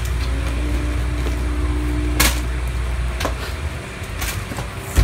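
A cardboard chess-set box being handled: a few short clicks and knocks, one sharp one about two seconds in and a thump at the very end, over a low hum.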